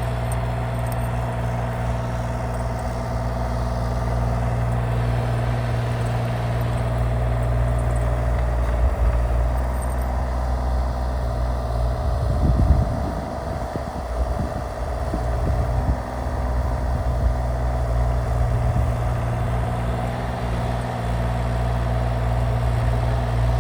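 Excavator diesel engine running steadily while it plows snow, with a few irregular clunks about halfway through.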